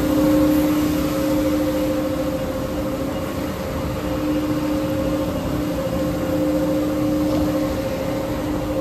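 Steady drone of industrial processing machinery, with a held mid-pitched hum and a lower hum that fades in and out over an even rushing noise.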